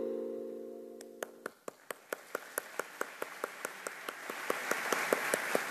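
The closing chord of background music fades out, and about a second in an audience starts clapping, first as sharp even claps about four a second, then swelling into general applause.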